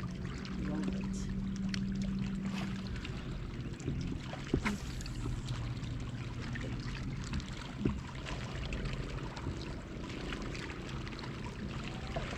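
Water lapping against a bass boat's hull under the steady hum of the bow-mounted electric trolling motor, which drops in pitch about three to four seconds in. Two sharp knocks on the boat midway.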